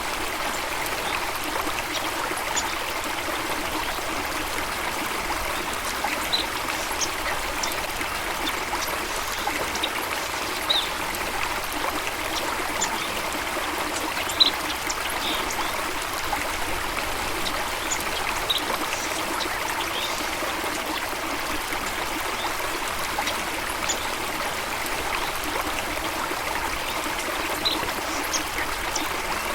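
Running water, a steady rushing trickle like a small waterfall or stream. Scattered short, high plinks or chirps sound over it, the sharpest about halfway through.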